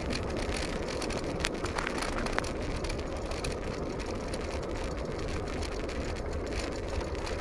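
Steady rumbling noise of travelling along, wind and road noise, with a few sharp clicks about one and a half to two and a half seconds in.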